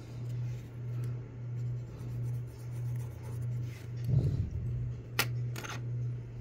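Pencil sketching on paper, faint scratching strokes over a steady low hum that swells and fades about every second. There is a dull bump about four seconds in and a sharp click a little after five seconds.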